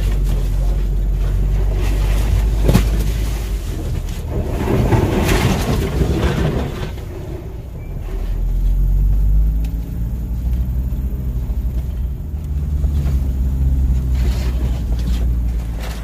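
Off-road vehicle's engine running at low speed with a deep, steady rumble. There is a louder, rougher stretch a few seconds in and a brief dip in level about halfway.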